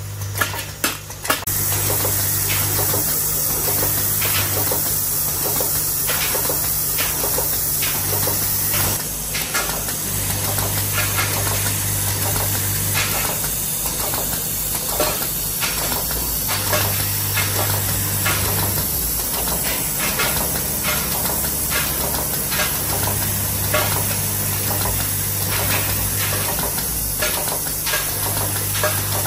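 Automatic brazing machine for copper terminals running: a steady hiss from its gas brazing torches, a low hum that cuts in and out every few seconds, and a run of irregular clicks and knocks from the indexing and feeding mechanism.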